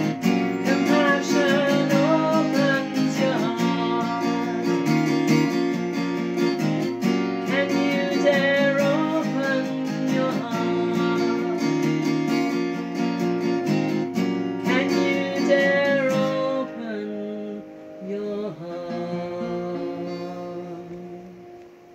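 A woman singing to her own acoustic guitar, strumming steadily. Past the middle the steady strumming stops, and the song closes on a few single strums and a last sung note that fades away.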